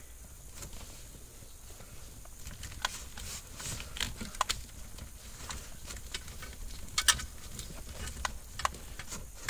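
Scattered light clicks and rustles of a wiring harness and plastic connectors being handled and tucked into place, over a low steady hum.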